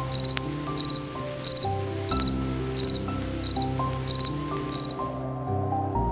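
Cricket chirping: short trills of about four quick pulses each, repeated evenly about one and a half times a second, stopping about five seconds in, over soft background music with sustained notes.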